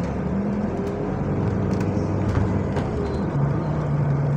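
Engine of bus SLN 12384 running as the bus drives along, heard from on board. Its steady low drone shifts up in pitch about a second in and settles back to a steady note near three seconds in.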